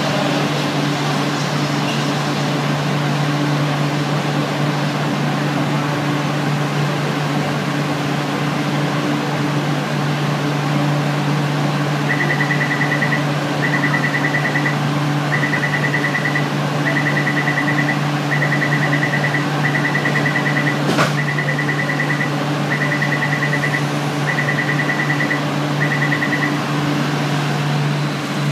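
Steady low machine hum with traffic noise on an elevated metro platform. From about halfway through, a high electronic beeper sounds in about ten one-second bursts with short gaps, and there is one sharp click near the end of the beeping.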